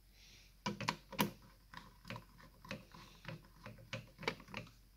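Plastic body of an M24 gel blaster being handled on a wooden workbench: a run of irregular clicks and light knocks, the loudest about a second in.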